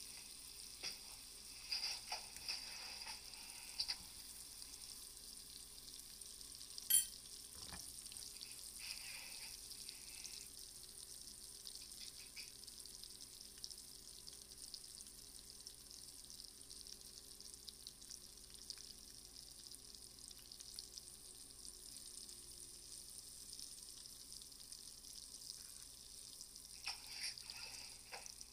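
Shrimp sizzling steadily in hot fat in a small frying pan. A few light clicks and knocks come early, the sharpest about seven seconds in, and a fork scrapes and clinks against the pan near the end as it turns the shrimp.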